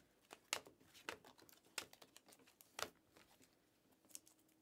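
Panini Mosaic basketball cards being flipped and slid off a stack by hand: a few soft, irregular clicks and snaps of card stock.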